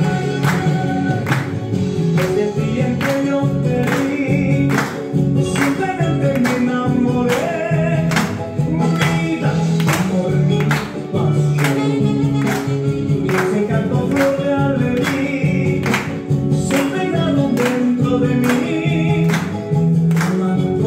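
Tunantada dance music with a steady, driving beat and melody lines running throughout.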